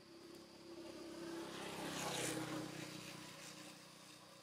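A motor vehicle passing by, growing louder to a peak about two seconds in and then fading away, its engine note dropping slightly in pitch as it goes past.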